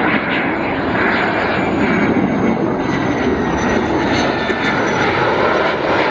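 Belgian Air Force F-16's single Pratt & Whitney F100 turbofan on landing approach with gear down: a steady jet rumble and hiss with a thin high whine that slowly drops in pitch.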